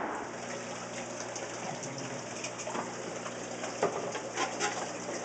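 Steady low hum of a saltwater aquarium system's pumps, with water trickling and gurgling and a few faint ticks.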